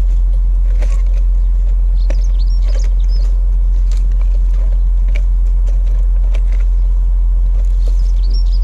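A steady low hum with birds chirping now and then, and scattered short clicks and taps of metal from the staple puller and fence staples being handled.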